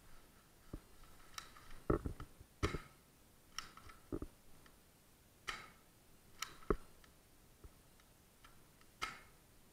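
Footsteps and small knocks on a grit-strewn concrete floor, irregularly spaced, a dozen or so in all.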